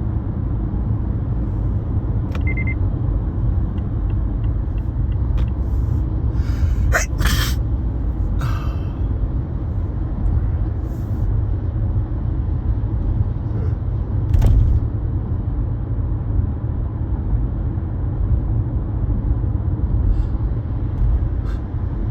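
Steady low rumble of background noise, with a few brief sharp noises about a third of the way in and again near two-thirds.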